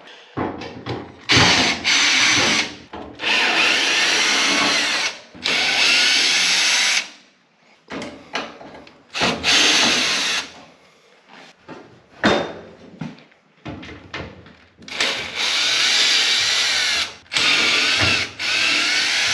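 Power drill driving screws out of a dryer cabinet in repeated bursts of one to two seconds, its motor whine shifting in pitch, with clicks and knocks between the bursts.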